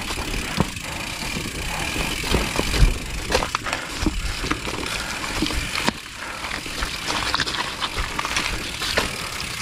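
Mountain bike rolling over a loose-stone dirt trail: tyres crunching on gravel and dry twigs, with frequent knocks and rattles from the bike as it bumps over rocks.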